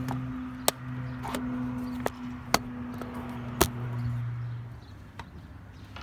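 Jaguar XJ6's straight-six engine running with a steady low hum that drops away about four to five seconds in, with a few sharp clicks over it.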